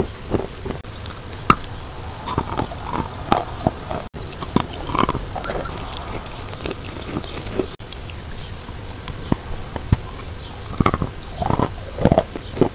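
Close-miked chewing and biting of chunks of Oktavia chalk: irregular crisp crunches and clicks as the chalk breaks up in the mouth.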